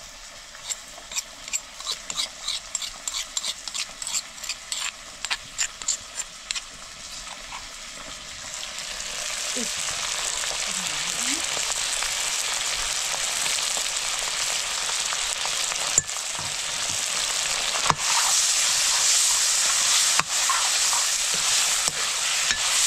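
Cooking in a pan: sharp utensil clicks, about two to three a second, for the first several seconds. Then a sizzle of frying swells about eight seconds in and stays loud and steady, with a few single clicks over it.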